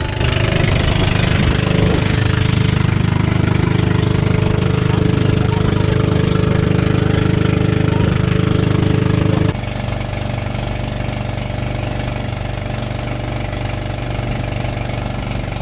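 Outrigger boat's engine running steadily under way. About two-thirds of the way through it drops off suddenly and continues quieter and lower.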